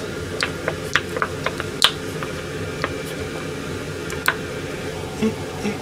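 Ketchup being squeezed from a plastic pouch over a wok of simmering pan juices: a steady bubbling hiss with scattered sharp clicks and crackles.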